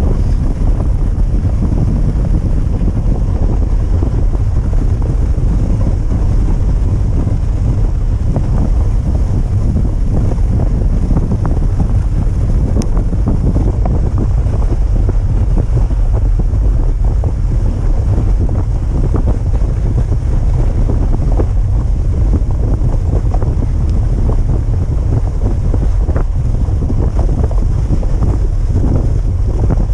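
Steady wind rumble buffeting the microphone of a camera riding on a moving dog sled, with the rush and hiss of the sled running over packed snow under it.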